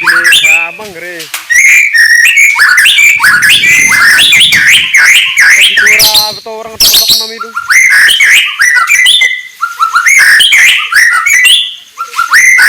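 White-rumped shama (murai batu) singing a rapid, varied stream of loud whistled phrases that slide up and down in pitch, broken only by brief pauses.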